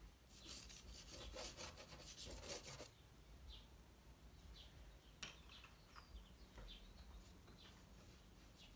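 Soft pastel stick scratching across textured pastel paper in a quick run of short strokes for about the first three seconds, faint. A sharp click comes about five seconds in.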